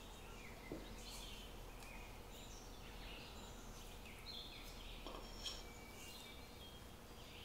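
Faint scraping and squishing of a spatula folding flour into thick chocolate-hazelnut cream dough in a stainless steel bowl, with short high squeaks and a couple of light knocks against the bowl.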